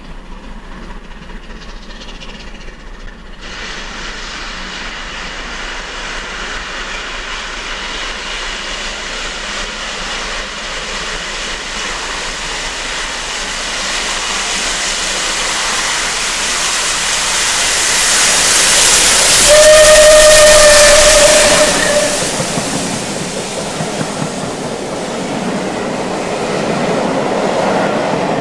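Steam locomotive hauling passenger coaches approaches, its sound growing steadily louder. About two-thirds of the way in it gives one steam whistle blast of about two seconds as it draws level, and then the coaches roll past.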